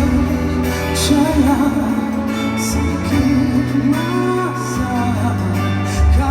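Pop song with band accompaniment and a sung melody over held bass notes.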